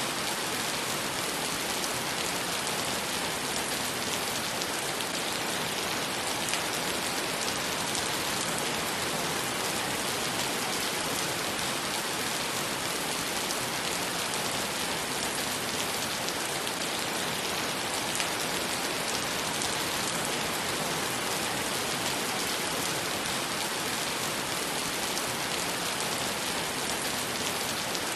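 Heavy rain falling on wet pavement, a steady dense hiss of drops splashing on the paved surface and its puddles.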